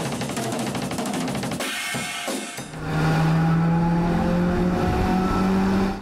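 Outro music: a driving drum-kit beat with cymbals and hi-hat, joined a little under three seconds in by loud sustained notes.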